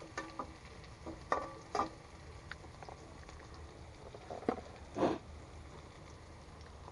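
Scattered light knocks and taps of cooking utensils around a wok on a portable gas stove, the loudest a little after a second in and about five seconds in, over a faint steady low rumble.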